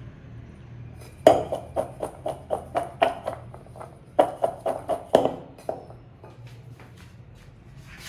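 Stainless steel mixing bowl knocking against the tabletop in quick, ringing strikes as it is shaken to toss raw potato sticks in cornstarch. Two runs of about four knocks a second, the first starting about a second in, with a short break between them.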